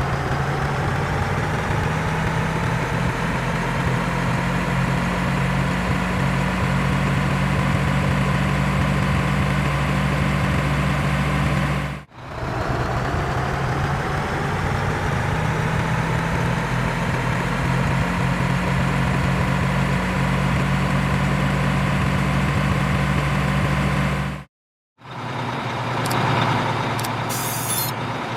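Heavy diesel machinery running steadily with a low hum, and a whine that rises in pitch after each restart. The sound drops out abruptly about twelve seconds in and again near the end, after which a different machine is heard with a rapid high clicking.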